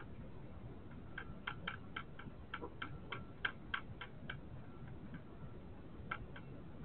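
A hedgehog crunching dry biscuits from a dish: a quick run of crisp, sharp crunches about four a second for some three seconds, then a pause and two more crunches near the end.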